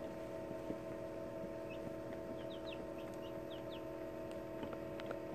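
Newly hatched chicks peeping in an incubator: a run of short, high, falling peeps in the middle, over a steady hum.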